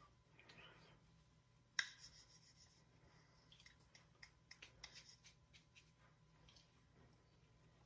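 Near silence, with one sharp click about two seconds in and a scatter of faint ticks after it, from hands meeting and brushing against each other while signing.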